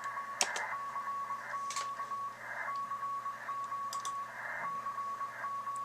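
Amateur radio Morse code (CW) signal received on a software defined radio: a single steady tone keyed on and off in dots and dashes over a hiss. A few sharp clicks sound over it.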